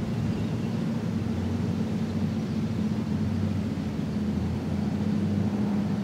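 Residential street ambience: a steady low rumble of distant traffic with a constant engine-like hum.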